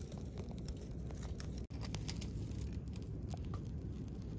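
Dry twigs catching fire and crackling, with irregular sharp pops over a steady low rumble. The sound drops out briefly about a second and a half in, then the crackling carries on.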